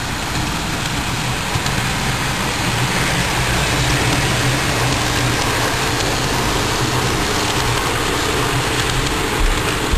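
HO-scale model train rolling past: locomotive motors hum and the wheels of the double-stack container cars run along the track in a steady rolling noise, with a few clicks near the end.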